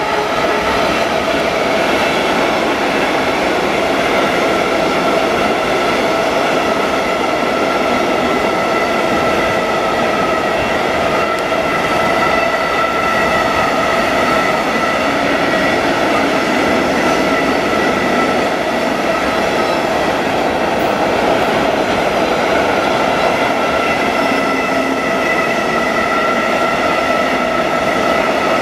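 Long freight train of tank-container and container wagons rolling steadily past, the wheels running loudly over the rails. Several steady high ringing tones sit over the running noise throughout.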